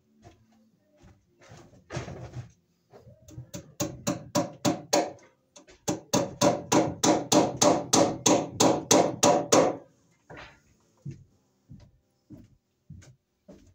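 Hammer driving cable staples into wooden floor joists overhead. A few blows come first, then a quick, even run of about four taps a second for several seconds, then a few more taps near the end.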